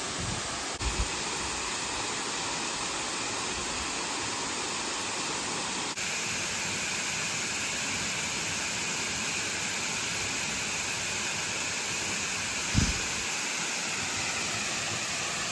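Steady rush of a waterfall: an even, constant hiss of falling water, with a brief low bump near the end.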